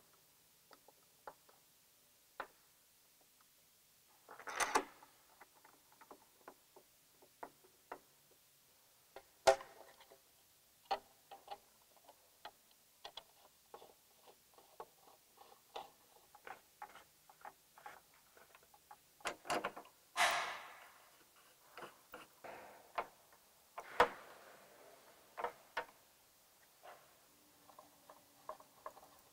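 Light, scattered clicks and ticks of a hand screwdriver turning fairing screws and of motorcycle body panels being handled and seated, with a few sharper knocks and a brief scraping rustle about two-thirds of the way in.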